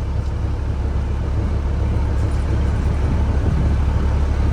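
Vehicle engine heard from inside the cab: a steady low drone with road and running noise over it, slowly growing louder.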